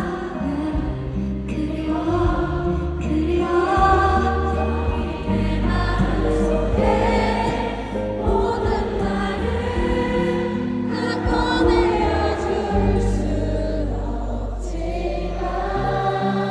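A large concert crowd singing a slow ballad together in unison, a mass of voices over the song's steady accompaniment.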